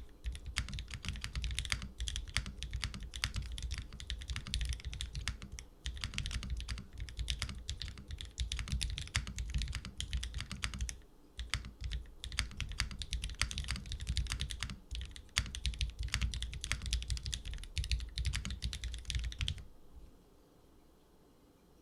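Continuous typing on a mechanical keyboard with lubed Cherry MX Black linear switches, an aluminium plate and GMK keycaps: a fast stream of key clacks, with brief pauses about 6 and 11 seconds in. The typing stops shortly before the end.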